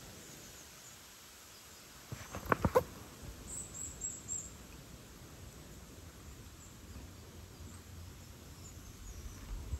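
Quiet outdoor background with a quick cluster of sharp knocks about two and a half seconds in, followed by a short run of four very high chirps.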